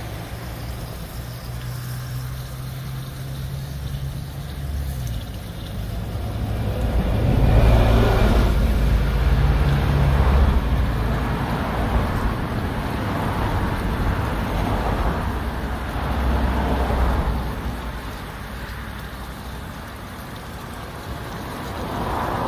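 Road traffic passing: a steady low rumble that swells as vehicles go by, loudest from about seven to eleven seconds in and again around sixteen seconds.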